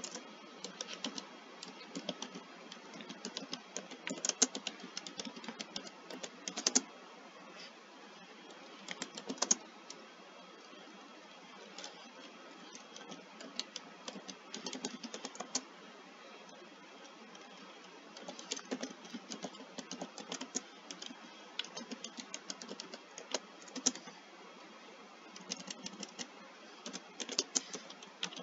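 Typing on a computer keyboard: irregular runs of keystroke clicks with pauses of a second or two between them, over a faint steady hiss.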